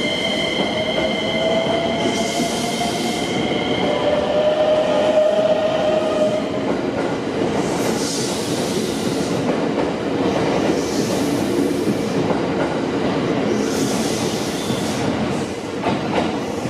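A JR West 227 series electric multiple unit accelerating away from the platform. Its Toyo Denki IGBT VVVF inverter traction motors whine, with a tone that rises in pitch over the first few seconds, over the rumble and clatter of the wheels. Bursts of hiss come every few seconds as the cars go by.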